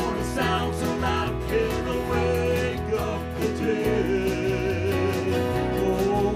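A country gospel band playing, with strummed acoustic guitars, electric bass and a Yamaha CP stage piano carrying a steady beat.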